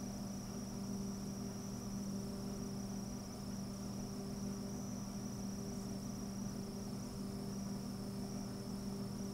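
Steady low electrical hum with a faint, constant high-pitched whine over it: unchanging room background noise with no distinct events.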